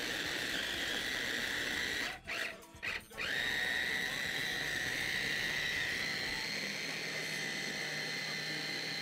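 Electric food processor motor running with a steady whine as it chops raw cauliflower. It stops twice briefly about two seconds in, then spins back up to speed.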